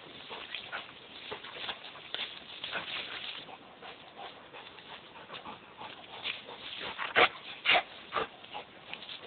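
A rottweiler worrying tree branches: twigs and leaves rustle and crackle, and the dog whines. Three loud, sharp cracks come about seven to eight seconds in.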